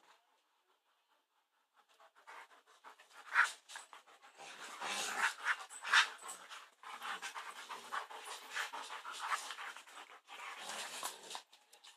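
Dogs panting fast and hard in rough bursts while play-wrestling, starting about two seconds in.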